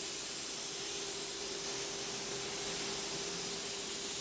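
Air-fed paint spray gun spraying paint onto a car body: a steady hiss of atomising air, with a steady tone underneath.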